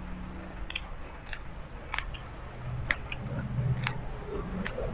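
Raw cabbage leaf crackling and snapping as it is torn and folded by hand, about seven sharp crisp snaps at uneven intervals over a faint low hum.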